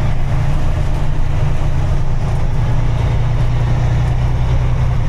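A motor vehicle's engine and road noise as it drives: a steady low drone that drops slightly in pitch about halfway through.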